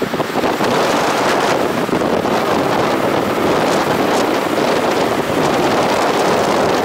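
Steady wind and road noise rushing over the microphone of a camera held at the side window of a moving car.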